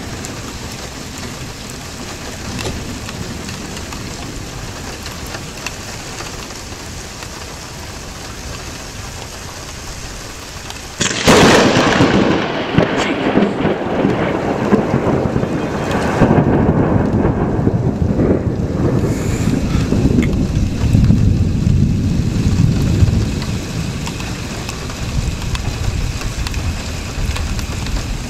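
Steady heavy rain, then about eleven seconds in a sudden, very loud thunderclap from lightning striking very close, followed by rolling thunder that rumbles on for about ten seconds, with a second swell, before easing back under the rain.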